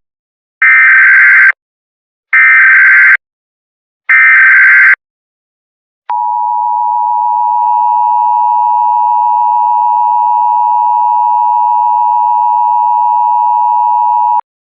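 Emergency Alert System tones: three short, loud, screeching SAME header data bursts that encode the alert, then the steady two-tone EAS attention signal, held for about eight seconds and cut off abruptly.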